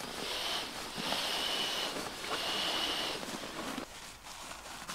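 Air rushing from a squeezed pump sack into an inflatable sleeping pad: three hissing rushes, each about a second long with a faint whistle, quieter near the end.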